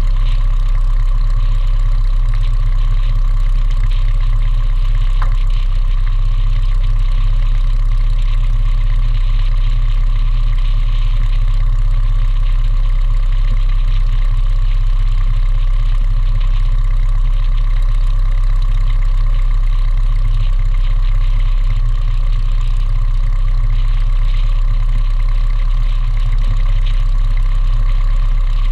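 Light aircraft's piston engine and propeller running steadily on the ground, with no change in power.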